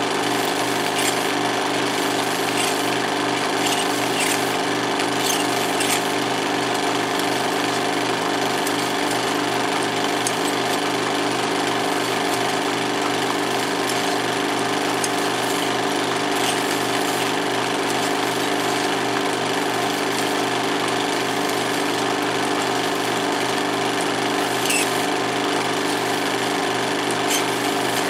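16mm film projector running steadily, a continuous mechanical clatter with a few faint ticks scattered through it.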